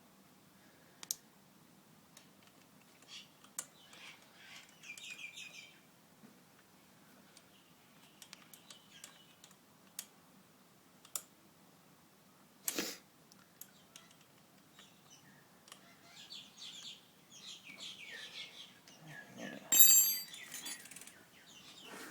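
Scattered clicks and clinks of metal BMX crank parts and tools being handled during crank reassembly, with one sharp knock about halfway and a loud, ringing metallic clatter near the end.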